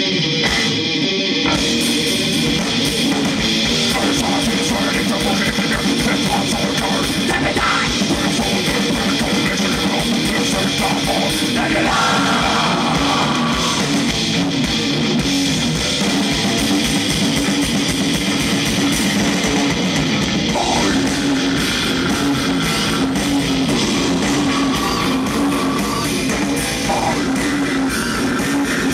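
Metal band playing live at full volume: electric guitars over a fast, steady drum kit beat.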